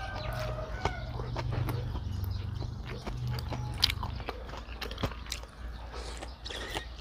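Close mouth sounds of a man chewing and eating: a stream of wet smacks and clicks. A low hum runs under the first four seconds.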